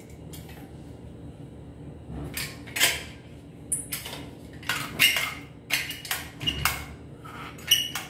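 Irregular sharp clicks, knocks and clatter of hard objects being handled and set down, about a dozen over the last six seconds, with a quick rattle near the end.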